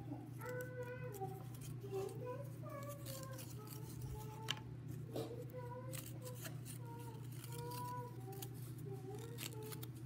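Cardboard toilet-paper-roll rings clicking and crinkling as they are pressed and fitted together into a ball, with a steady low hum and a soft wavering tune underneath.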